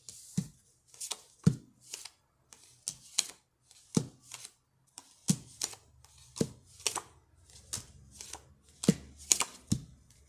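Tarot cards being flipped over and laid down on a table: an irregular string of sharp snaps and taps, about two a second.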